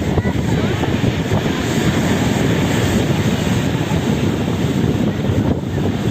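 Steady loud wind rumble buffeting the microphone, a dense low roar with no pauses.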